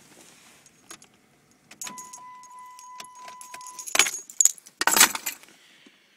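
A steady electronic warning tone from the car sounds for about two seconds and stops. Then a set of car keys jangles loudly in two bursts, handled and dropped into the cupholder.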